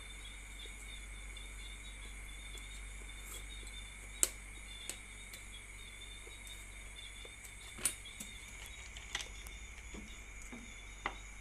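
Steady chirring of crickets in the background, broken by a few sharp clicks and knocks, the loudest about four seconds in, from chopsticks, a plastic food tray and a plastic water bottle being handled during a meal.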